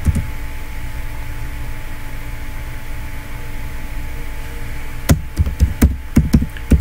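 Steady low hum with a faint hiss, then, about five seconds in, a quick run of about ten sharp computer-keyboard key clicks as a password is typed at the prompt.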